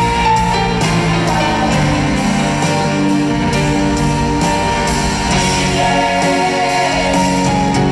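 Live rock band with a string section playing in an arena, heard from the stands: held chords from guitars, keyboards and strings over a steady drum beat.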